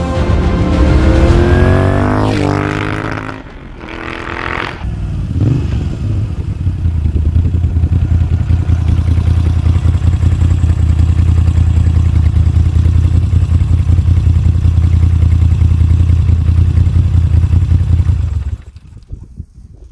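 Moto Guzzi V7 III's air-cooled 90-degree V-twin, breathing through a Mivv exhaust, revs as the bike approaches and pulls up. It then settles into a steady, lumpy idle, and the engine is switched off near the end.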